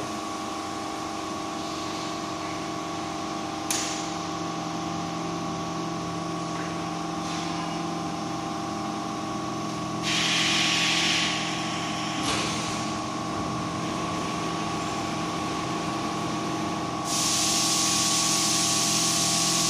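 Hot plate plastic welding and cutting machine running with a steady hum. There is a click a little under four seconds in, a short burst of hissing about ten seconds in, and a longer hiss from about seventeen seconds on.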